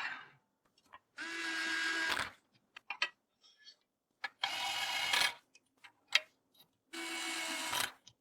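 Small electric screwdriver running in three short bursts of about a second each, with light clicks and taps of parts between them.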